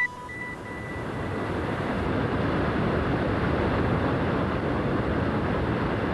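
The last notes of a theme tune ring out and fade within the first second, while a steady rushing roar swells in over about two seconds and then holds.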